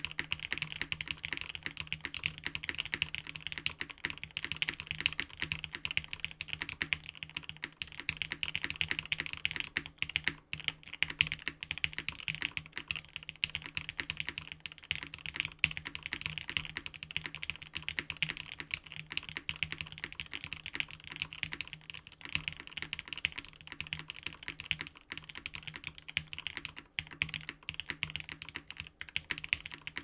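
Fast, continuous two-handed typing on a Kaze TKL custom mechanical keyboard: Ultraglide linear switches, lubed with 205g0 and filmed, in an X-ring-mounted polycarbonate plate, with ABS keycaps. A dense, unbroken run of keystrokes with no pauses.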